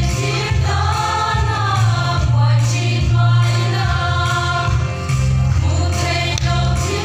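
Women's choir singing a Mizo gospel song over instrumental accompaniment with a strong, steady low bass.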